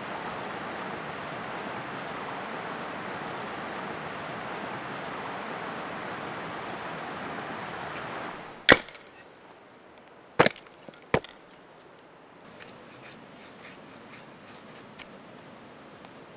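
River rapids rushing steadily over rocks, cutting off after about eight seconds. Then a knife works a stick of wood into a feather stick: three sharp wooden cracks, then lighter ticks as shavings are carved.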